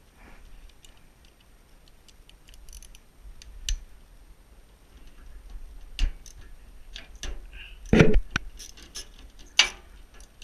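Irregular clicks, knocks and clanks of hand tools and metal parts as a motor is unbolted from a pellet stove's sheet-metal body, with a louder rattling clunk about eight seconds in.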